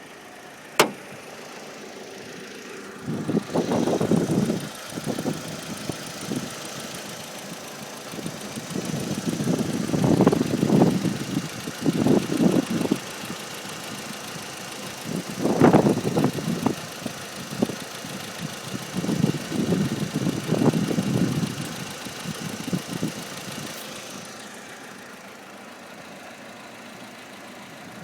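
2005 Audi A4 1.8T idling on a cold start with a loud high whine from its secondary air injection pump, which is on the verge of failing. Irregular loud low rumbling gusts come and go over it. The whine stops about 24 seconds in.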